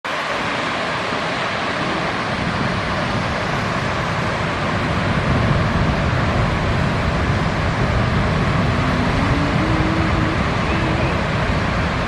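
Steady roar of ocean surf breaking, a little louder from about halfway through.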